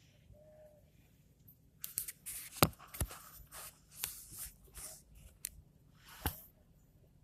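Handling noises: a run of short scrapes and rustles with several sharp clicks, three of them standing out.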